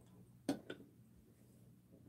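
Two short clinks of metal spoons against ceramic bowls while eating rice porridge, close together about half a second in.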